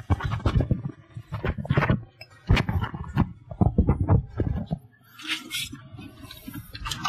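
A run of irregular dull thumps and knocks, several a second, for about five seconds, followed by a short hiss.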